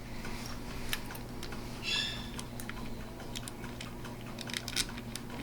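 Faint, scattered light clicks and taps of small plastic washers being handled and fitted onto the CPU water block's mounting studs, with a short squeak about two seconds in and a steady low hum underneath.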